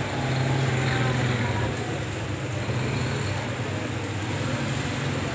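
Water bubbling in a plastic bucket around a submerged electric water heater, over a steady low hum.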